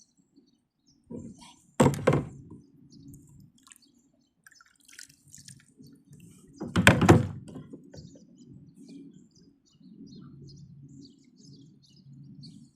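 Two loud thumps about five seconds apart, with low uneven rumbling between them and faint bird chirps.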